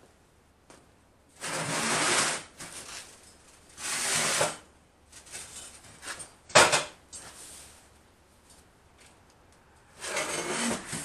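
Heavy welded steel anvil stand being flipped over and handled on a steel welding table: several short scrapes of steel sliding on steel, with one sharp, loud clank about six and a half seconds in.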